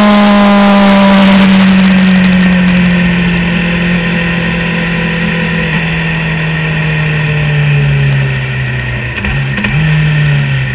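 Suzuki GSX-R750 sportbike's inline-four engine running on the road, its note sinking slowly as the revs fall, with a short dip and then a rise in pitch about nine seconds in. Wind rushes over the microphone.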